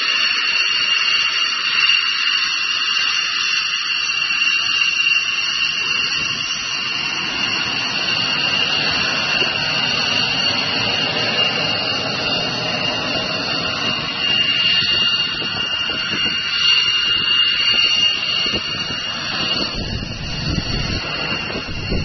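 C-5 Galaxy cargo plane's four turbofan engines at takeoff power during the takeoff roll: a loud, steady jet noise with a high whine. A deeper rumble builds in near the end.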